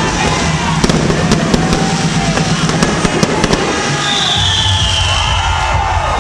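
Fireworks display with rapid crackling and popping from bursting shells and fountains over a dense roar. About four seconds in, a high whistle glides slowly downward.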